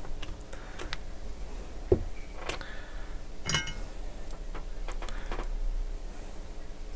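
Small clicks, taps and a brief metallic clink from soldering tools being worked against a circuit board, scattered irregularly over a faint steady low hum.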